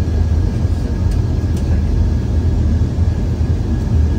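Boeing 747-8 flight simulator's engine and runway sound during the takeoff roll at takeoff thrust: a loud, steady low rumble with a faint steady whine above it.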